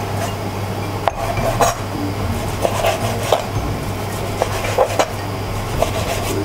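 Kitchen knife chopping thin-sliced pork shoulder loin on a cutting board: irregular knocks of the blade striking the board, a dozen or so, sometimes two in quick succession.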